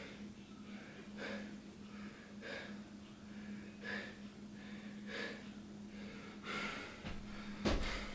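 A person breathing heavily, with a breath about every second and a quarter, while unwell. A steady low hum runs underneath, and a knock comes near the end.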